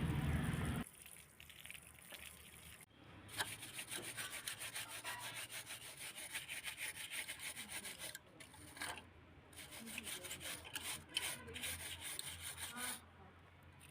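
A brush scrubbing the removed indoor blower wheel of a split air conditioner, in fast, even back-and-forth strokes. The scrubbing comes in two spells, with a short pause between them a little past the middle.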